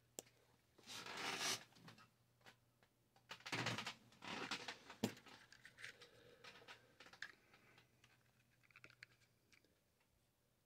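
Faint scratching and rustling of hand work at the bench, in a few short bursts with small clicks, over a low steady hum.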